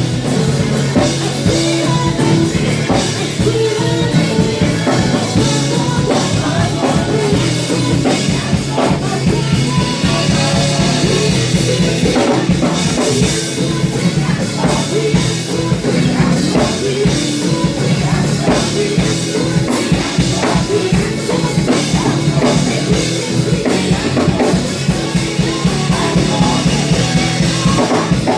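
Praise-and-worship band playing an upbeat song, led by a driving drum kit with bass and guitar, with voices singing over it.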